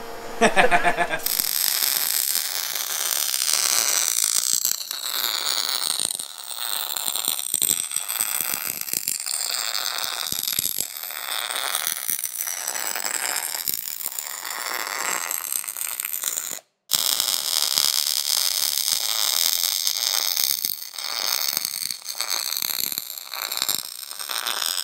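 MIG welding arc crackling steadily as beads are laid on a steel truss on a Dana 60 axle housing. There are short dips between beads, and the sound drops out for an instant about two-thirds of the way through.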